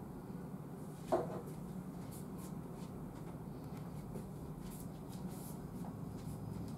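Faint handling noise from a handheld camera: a soft knock about a second in and light rubbing and ticking over a steady low hum.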